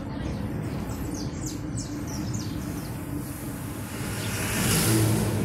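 Steady road and engine noise heard from inside a moving car, with a few short, high, falling chirps in the first couple of seconds. Near the end an oncoming bus passes close by, its engine and rush of air swelling to the loudest point.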